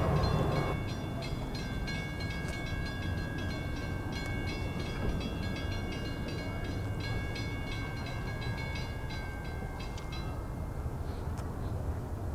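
Railroad crossing bell ringing with quick, even strokes, stopping about ten and a half seconds in, over a low steady rumble.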